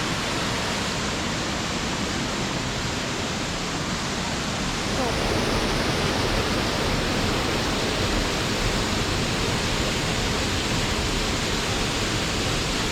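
Steady rush of flowing water from the waterfall and its stream, a dense even hiss that gets slightly louder about halfway through.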